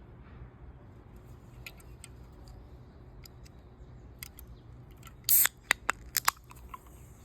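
A series of small, sharp clicks, then a short loud rasp a little past five seconds in, followed by four sharp clicks.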